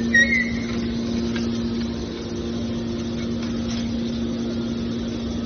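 Machinery running with a steady hum, a brief high squeal at the start.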